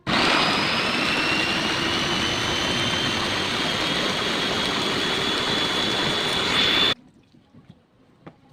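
Electric kitchen blender running for about seven seconds, a loud steady whir with a motor whine that rises slightly in pitch as it goes, then switched off abruptly. Typical of blending corn kernels for corn porridge.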